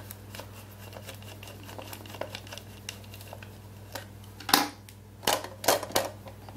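Light, irregular clicks and taps over a steady low hum, with a few louder sharp clicks in the second half.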